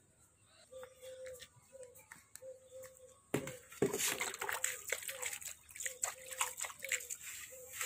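Water splashing and sloshing in a large metal tub as a hand scoops it out and flicks it onto dry chopped fodder in a metal pan. It starts about three seconds in with one sharp splash, then many quick splashes follow.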